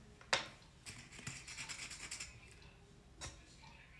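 Small handling sounds of a liquid concealer and its wand applicator: a sharp click about a third of a second in, a soft scratchy crackle for a second or so, and a second, fainter click near the end.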